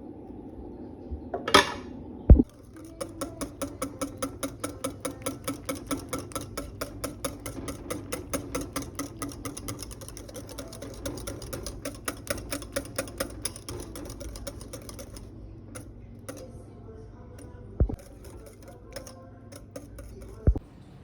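Countertop blender running on a grain mash, with a fast, even rattle of about four a second over a steady motor hum for roughly twelve seconds. Two sharp knocks come before it starts and a few scattered clicks after it stops.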